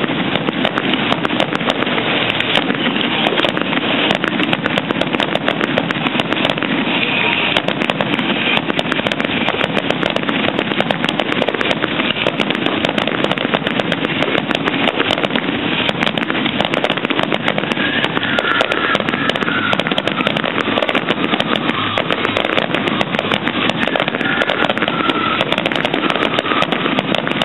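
Firework display: a dense, continuous barrage of crackling fireworks with rapid pops and no pauses.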